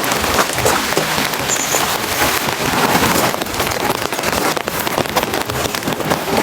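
Steady heavy rain: a dense, continuous patter of drops striking a surface.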